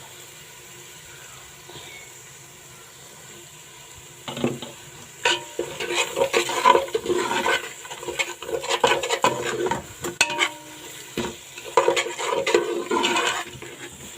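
A spoon stirring and scraping around a pot of frying tomato-and-pepper stew base, mixing in spice. The pot is quiet for the first few seconds, then irregular scrapes and knocks start about four seconds in and go on in bursts.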